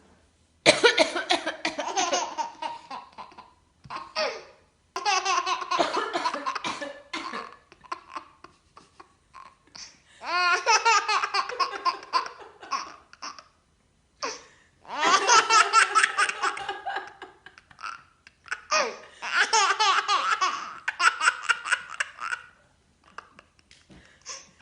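Baby laughing hard in about six bouts of a few seconds each, in quick high-pitched pulses, set off by a person's coughing. Short coughs fall in the gaps between the bouts.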